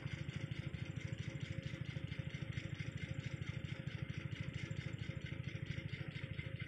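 An engine idling steadily, a fast even beat of about twelve pulses a second.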